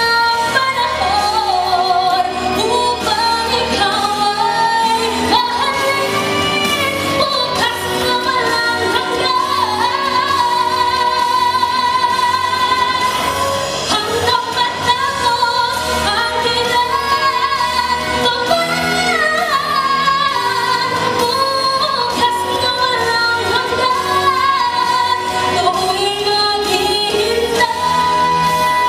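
Female vocalist singing an OPM (Filipino pop) song live into a handheld microphone, holding long notes, over instrumental accompaniment and amplified through a PA system.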